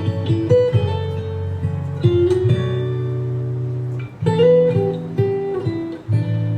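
Acoustic guitar playing a song's intro, strummed chords and plucked notes over sustained low notes, before the vocal comes in.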